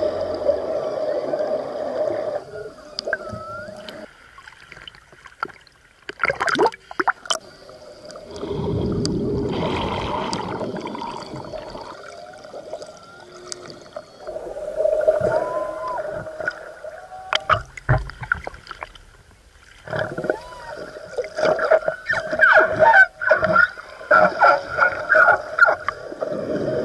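Humpback whales calling underwater: long held moans and short whoops that bend up and down in pitch, with a stretch of bubbling water noise about a third of the way in and a few sharp clicks.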